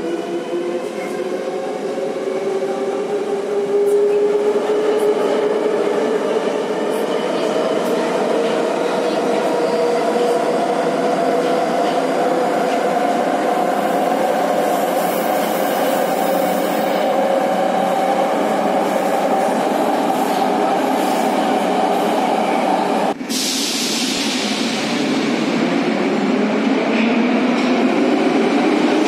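Metro train running through a tunnel: the electric traction motors whine, rising in pitch as it accelerates over the first few seconds, then hold a steady tone over the rumble of wheels on rail. About 23 seconds in the sound breaks off abruptly into a burst of hiss that fades, followed by a train's motor whine rising again.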